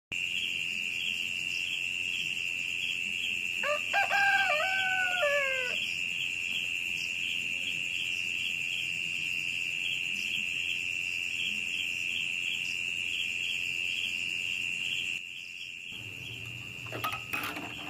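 A rooster crows once, about four seconds in, a call of about two seconds that drops in pitch at the end. Under it runs a steady, high-pitched shrill drone with a faint regular pulse.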